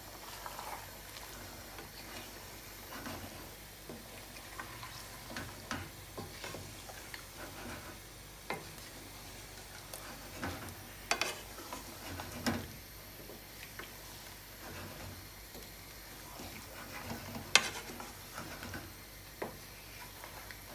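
Wooden spoon stirring chicken and bottle gourd curry in a frying pan, with a faint sizzle under it and scattered light knocks of the spoon against the pan, the sharpest one near the end.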